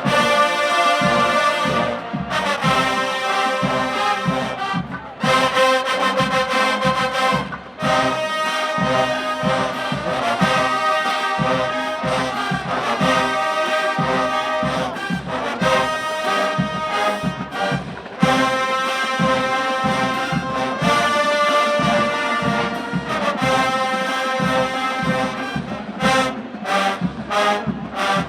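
College marching band playing a brass-heavy piece, with trombones and trumpets holding loud chords in phrases of a few seconds each, then a run of short punched hits near the end.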